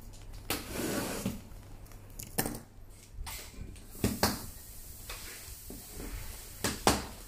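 A parcel being opened by hand: plastic packaging and bubble wrap rustling and crinkling, with several short, sharp crackles.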